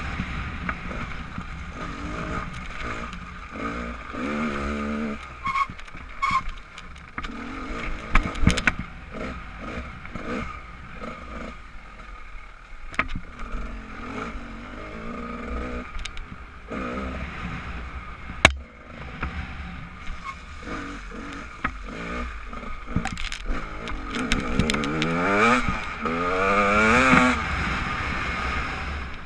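Off-road motorcycle engine heard from on the bike, its pitch rising and falling with the throttle as it rides a rutted dirt track, loudest as it revs up near the end. Sharp knocks and clatter from the bike going over the bumps break in now and then, over a steady low rumble of wind on the camera microphone.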